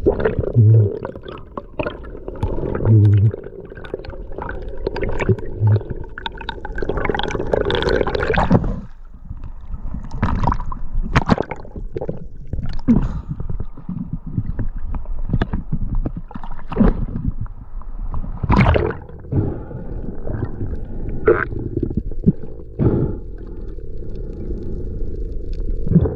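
Water sounds picked up by a diving camera underwater and at the surface: gurgling and sloshing over a steady low rumble, broken by many short knocks and splashes.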